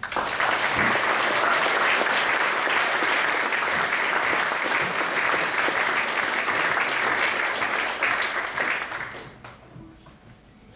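Audience applauding, starting at once and holding steady for about nine seconds before dying away.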